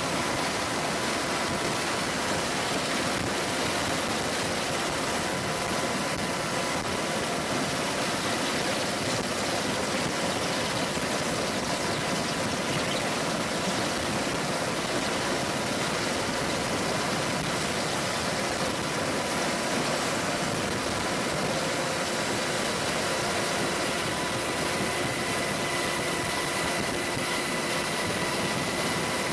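AH-64D Apache helicopters' turboshaft engines running, a steady whine of several high tones over a constant rushing noise. The highest tone grows a little stronger near the end.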